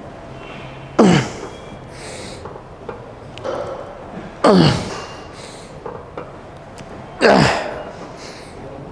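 A man's forceful straining exhales, three of them about three seconds apart, each starting sharp and falling in pitch, with quicker breaths in between: hard breathing through the reps of a heavy, slow dumbbell back-extension set.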